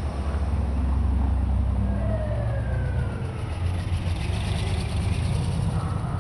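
Car engines rumbling low as cars drive slowly past close by, with a faint falling tone about two seconds in.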